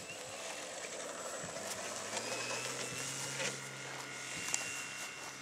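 Electric motor and propeller of a Great Planes 60-size Cub RC airplane, powered by an E-flite Power 60 brushless motor, whining on the takeoff run, its pitch rising a little about two seconds in.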